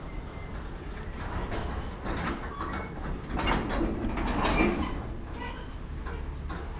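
Freight train running on the rails through a station: a steady rumble of wheels and cars that grows louder about halfway through, then eases.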